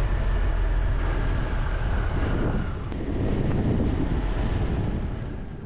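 Triumph Tiger 1200 three-cylinder engine running on the move, with wind rushing over the microphone. The engine note changes about two and a half seconds in, and the sound fades near the end.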